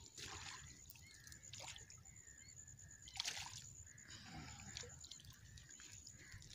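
Hooked catfish thrashing in shallow water as it is lifted out by hand. A few faint, brief splashes and sloshes, the loudest a little past three seconds in.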